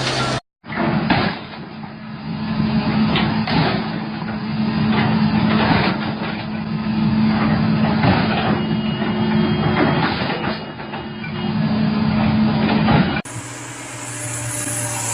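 Heavy machinery running with a steady low hum and many irregular clanks and knocks. Near the end it cuts abruptly to a different steady engine sound.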